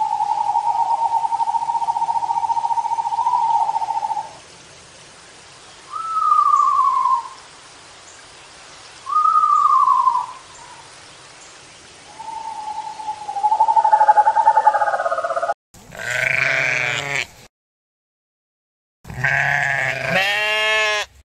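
Ring-tailed lemur calls: one long steady wail, then two short calls falling in pitch and a run of further calling. After a sudden cut, sheep bleat twice with a wavering pitch.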